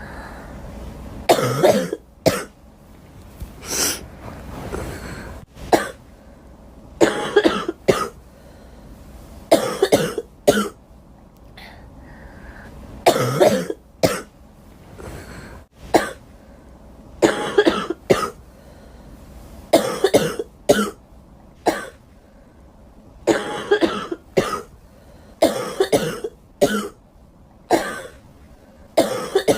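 A girl coughing repeatedly, in short fits of two or three coughs every few seconds.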